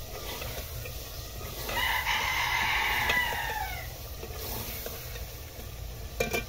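A rooster crowing once, a drawn-out call of about two seconds starting near two seconds in and falling in pitch at its end.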